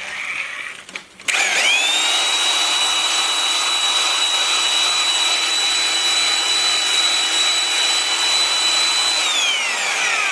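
Electric drill spinning a 250-grit stone cylinder hone in a cast-iron bore of a Willys F-head engine block, on the final pass that leaves the crosshatch for ring seating. The drill starts suddenly about a second in and runs at a steady whine, with the stones rubbing on the cylinder wall. Near the end it winds down with a falling pitch.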